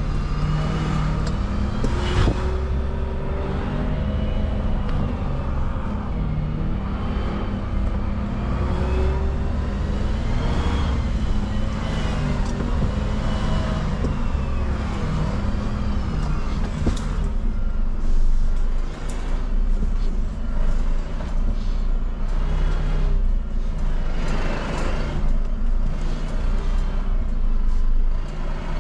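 Garbage truck engine running, its pitch rising and falling, with clattering knocks through the second half.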